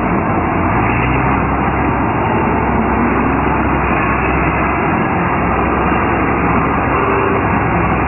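Combine harvester running steadily, a loud continuous engine hum with a dense mechanical din over it.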